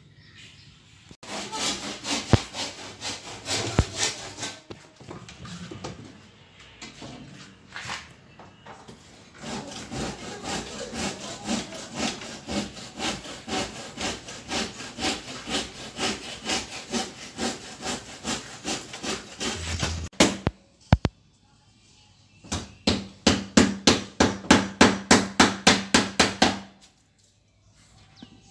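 Hand saw cutting wooden planks in a steady back-and-forth rhythm, about two strokes a second, speeding up to about three or four strokes a second for a few seconds near the end, with a few separate sharp knocks of wood.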